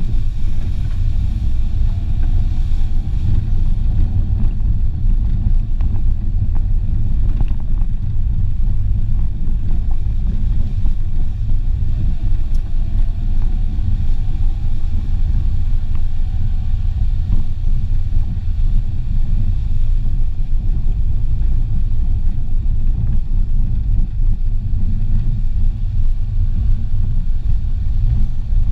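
Renault Clio driving along a rough, muddy dirt track: a loud, steady low rumble of engine and tyres, with the engine note rising gently twice as the car picks up speed.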